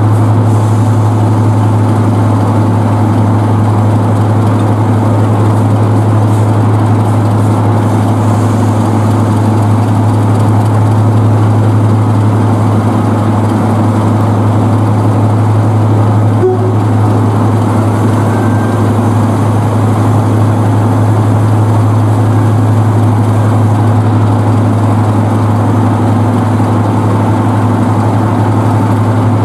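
Class 31 diesel locomotive's English Electric 12SVT V12 engine idling steadily in a deep, constant drone, still cold after a cold start and putting out heavy exhaust smoke.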